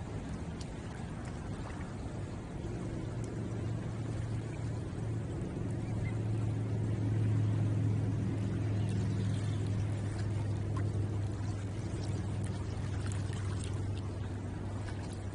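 Water washing along a shoreline, under a low motor hum that grows louder toward the middle and then fades.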